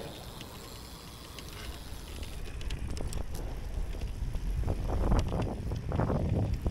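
Riding a bicycle: low rumble of tyres and wind buffeting the microphone, with a few light clicks and rattles. The wind noise grows louder about halfway through.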